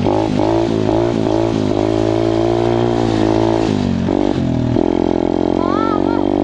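KXD 125cc pit bike's four-stroke single-cylinder engine running under throttle. Its pitch rises and falls with quick throttle changes in the first second or two, dips briefly about four seconds in, then holds steady.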